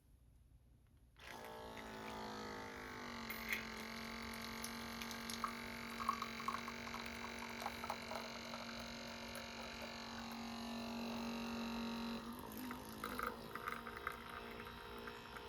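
OutIn portable espresso machine's electric pump starting about a second in and running with a steady hum, its pitch settling slightly lower over the first couple of seconds as it pushes hot water through an espresso pod, with scattered crackles of liquid flowing. Near the end the hum wavers and turns rougher.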